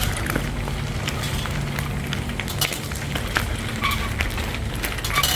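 Bicycle tyres crunching over loose gravel: a dense run of small crackles over a low rumble.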